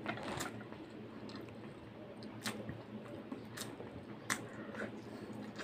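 Close-miked wet chewing of a mouthful of fish and rice, with a handful of sharp clicks.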